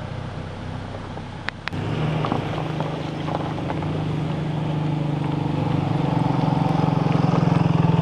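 Small motor scooter's engine running as it rides up and passes close by, growing steadily louder from about two seconds in.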